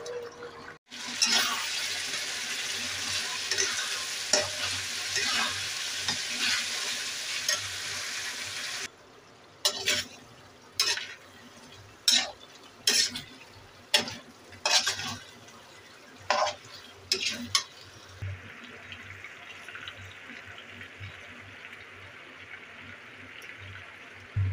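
Taro root curry sizzling and bubbling hard in a kadhai, cut off suddenly about nine seconds in. Then a spatula stirs and scrapes the pan about once a second for several strokes, and a quieter steady sizzle follows as the pieces fry nearly dry.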